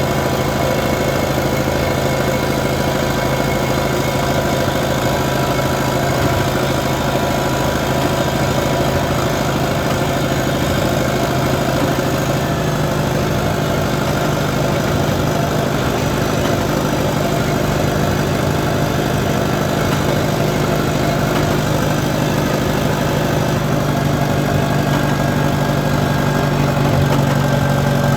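An engine running steadily, its tone shifting slightly about halfway through and growing a little louder near the end.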